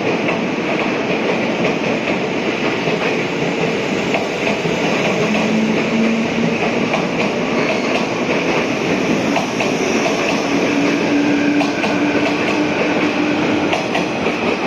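A train running past along a station track, with steady wheel and rail noise and wheels clattering over rail joints. A faint steady whine comes and goes midway.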